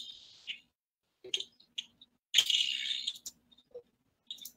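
Computer mouse and keyboard clicks: a few single sharp clicks, spaced about half a second apart, with a short hissing rustle lasting about a second in the middle.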